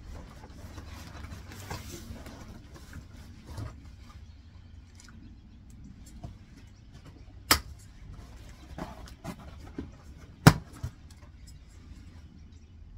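Handling noises of a cardboard shipping box and a small hand tool: light knocks and rustles, with two sharp clicks about three seconds apart, the second the loudest, over a steady low rumble.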